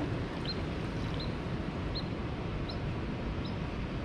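A small bird chirping, five short high chirps about a second apart, over a steady rushing background noise.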